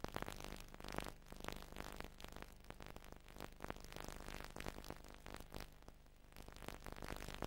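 Faint irregular crackling and hiss over a low steady hum, with no speech or music: background noise of the recording.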